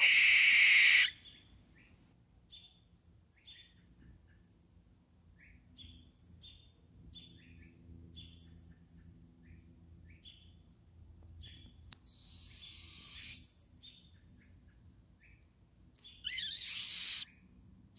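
Owls calling: a harsh, hissing screech in the first second and another about sixteen seconds in, a rising screech about twelve seconds in, and many short chirps scattered between.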